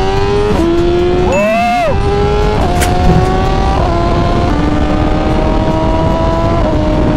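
2023 BMW M1000RR inline-four engine through a full titanium exhaust with the catalytic converter removed, pulling hard in gear: its pitch climbs steadily and drops abruptly at several quick upshifts. About a second and a half in, the engine revs up sharply and falls back.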